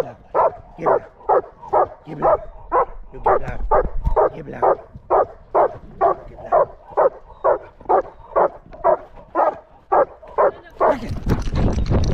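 A dog barking in a steady, regular rhythm, about two barks a second. About a second before the end the barking gives way to a loud rushing noise.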